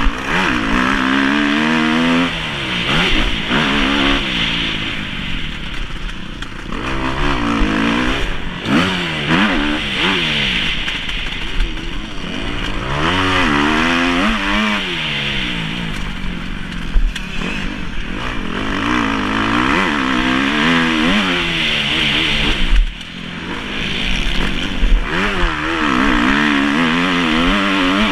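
Kawasaki KX250F four-stroke single-cylinder motocross engine being ridden hard, its pitch repeatedly climbing and falling as the throttle is opened and shut through the gears, with wind rushing over the microphone. The engine note drops away briefly about three-quarters of the way through, then picks up again.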